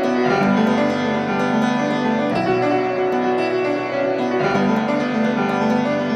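Piano music playing steadily, a slow classical-style piece of held chords and melody notes.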